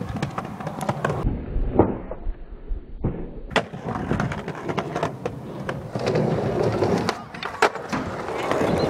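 Skateboard wheels rolling on concrete, with several sharp clacks of the board striking the ground as skaters pop and land tricks.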